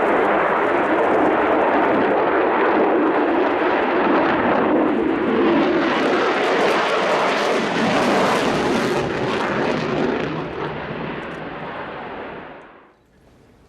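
Lockheed Martin F-35B Lightning II's F135 turbofan roaring by in a loud jet rush. The sound grows harsher and brighter in the middle, fades, then drops away suddenly just before the end.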